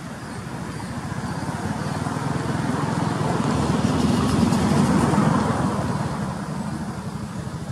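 A motor vehicle passing by on the road: its engine grows steadily louder for about five seconds, then fades away.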